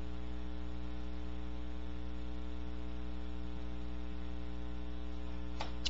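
Steady electrical mains hum with many evenly spaced overtones, running in the audio chain between the narration, with one faint click just before the end.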